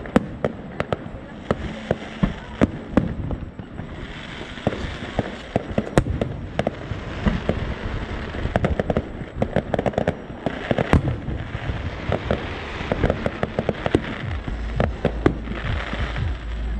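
Aerial fireworks going off in quick, irregular succession: many sharp bangs and pops from bursting shells.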